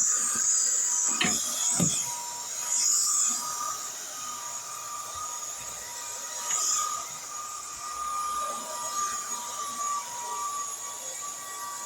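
Buture cordless vacuum cleaner running: a steady high whine with hiss, and two knocks about a second and two seconds in.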